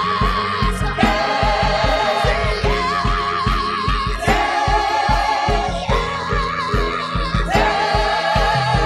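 Gospel-style worship music: voices holding long, wavering notes over a steady beat.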